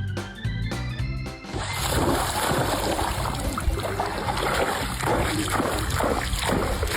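Background music with a steady beat, and about two seconds in, loud water splashing comes in over it and continues.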